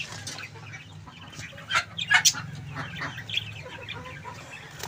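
Chickens clucking, with a few short sharp clinks from a wire birdcage about two seconds in as a hand reaches inside it. A steady low hum runs underneath.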